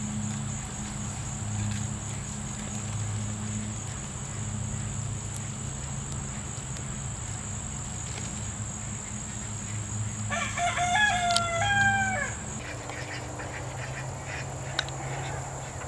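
A rooster crows once, about ten seconds in: a single call of about two seconds that steps up and down in pitch. Beneath it runs a steady high whine and a low hum.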